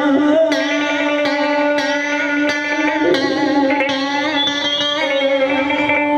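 Live instrumental break: an electric guitar plays a melody with bending, wavering notes over a steady sustained note underneath.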